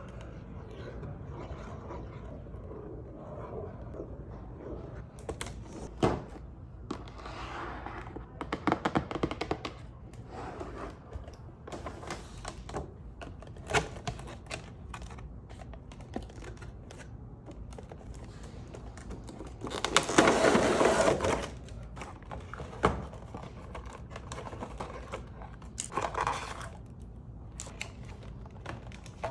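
Toy packaging being handled and opened: scattered taps and clicks, with a louder rustle of packaging about twenty seconds in.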